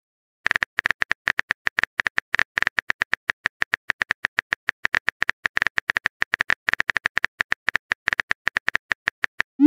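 Phone-keyboard typing sound effect: rapid, slightly uneven key clicks, several a second, as a message is typed letter by letter. A short rising whoosh begins right at the end as the message is sent.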